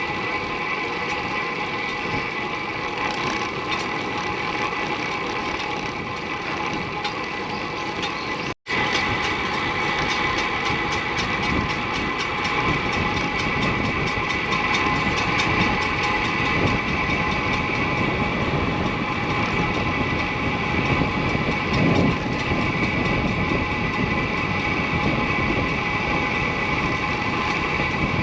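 Disc brake on a Ridley Fenix SLiC disc road bike making a steady high-pitched squeal with several ringing tones while the bike is ridden, over road and wind noise. This is the abnormal brake noise that the owner's fixes have not cured. The sound cuts out for an instant about a third of the way in.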